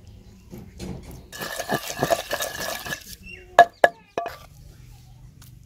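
Metal spoon scraping and stirring wet spice paste against the inside of a stone mortar, a gritty scrape lasting about a second and a half, then two sharp clinks of the spoon against the stone.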